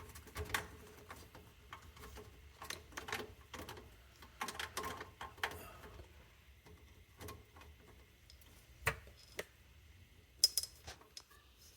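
Scattered light clicks and taps of plastic sink drain parts being handled, with a few sharper knocks about nine and ten and a half seconds in.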